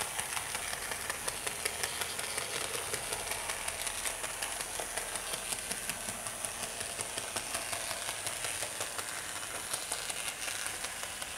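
Bachmann Gandy Dancer motorised model hand car running along the track at half speed: a steady small-motor whirr with rapid fine clicking.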